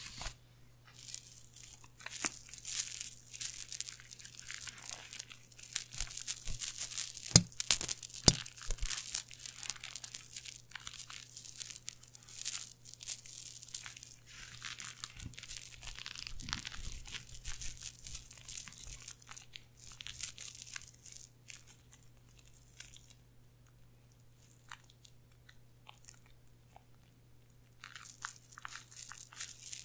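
Small metal coins on a chain necklace jingling and clinking against each other close to the microphone, in quick irregular rustling bursts; they quieten for a few seconds late on, then pick up again near the end.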